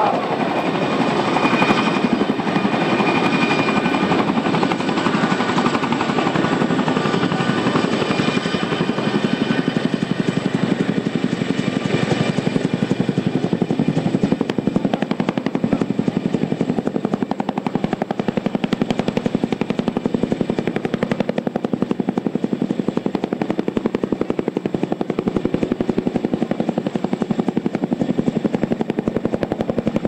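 MH-47 Chinook tandem-rotor helicopter hovering low over water: the rapid, steady beat of its two rotors, with a twin-turbine whine that is strongest in the first half and fades after about halfway.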